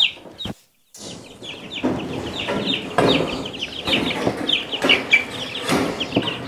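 A flock of young chickens cheeping continuously, many short falling peeps a second, with rustling as the wire pen is handled. The sound drops out completely for a moment about half a second in.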